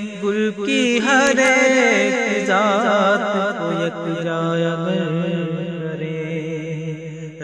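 A man singing a naat in long, wavering, ornamented phrases over a steady low drone.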